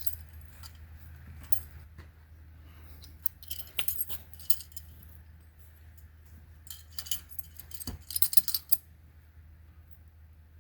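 Light metallic clinking and rattling in two short flurries, about three seconds in and again about seven seconds in, as a metal raccoon trap is handled and set.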